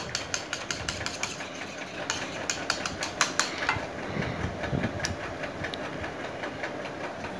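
Metal wire whisk beating eggs with spices in a plastic bowl: quick clicks and taps of the wires against the bowl that thin out and stop about three and a half seconds in.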